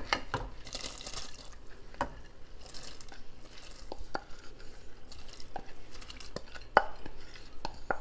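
Wooden spoon scraping washed red lentils out of a glass bowl into a pot of simmering sauce, with irregular knocks and taps of the spoon against the glass.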